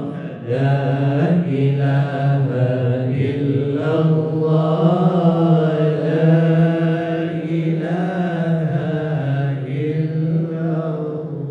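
A group of voices chanting Sufi dhikr in unison, a low, steady, repeated invocation.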